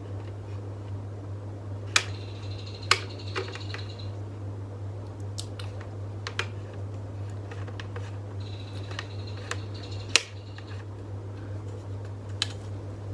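Hard plastic clicks and knocks of a tripod and ring-light phone holder being handled and fitted together. There are two spells of a thin, high squeak as parts are turned, over a steady low hum.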